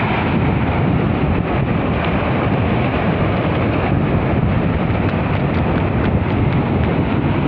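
Wind buffeting the microphone: a loud, steady rumbling noise with no pitch to it.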